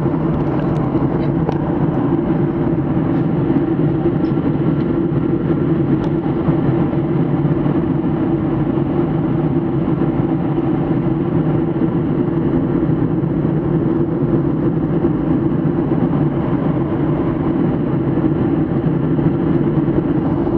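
Steady low drone of a WestJet Boeing 737's jet engines and rushing air, heard from inside the passenger cabin in flight.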